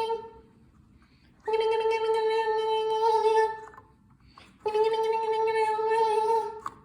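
Smoke alarm sounding a buzzing, steady-pitched ring like a landline telephone: the tail of one ring, then two more rings of about two seconds each, a little over a second apart.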